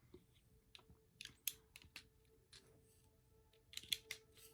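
Faint, scattered clicks and clatter of plastic Lego pieces being handled and pressed together, with a small flurry of clicks near the end.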